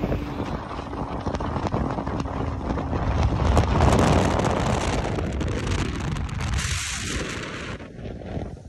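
Wind buffeting the microphone of a fast-moving motorboat, mixed with the rush of water and spray off the hull. The noise is steady and loudest about four seconds in, then eases off near the end.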